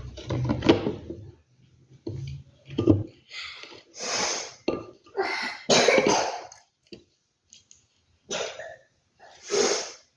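Close-miked crunching of dry earthy chunks, in irregular bursts of crackly crunches with short pauses between them; the longest run of crunching comes in the middle.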